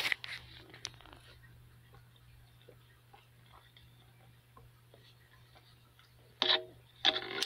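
Faint, scattered ticks and taps over a steady low hum. Two short voice-like sounds come near the end.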